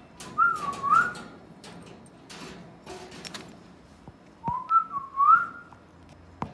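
Alexandrine parakeet whistling two short, wavering phrases about four seconds apart, each ending in an upward glide, with a few sharp clicks in between.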